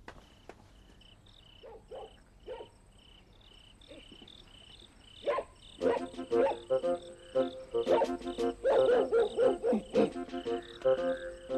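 Crickets chirping in a steady run of short, high pulses. Background music comes in about six seconds in and continues over the chirping.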